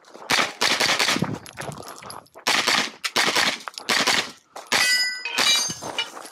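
Pistol-caliber carbine firing a string of quick shots in several bursts, with pauses between target arrays. About five seconds in, two hits are followed by steel plates ringing.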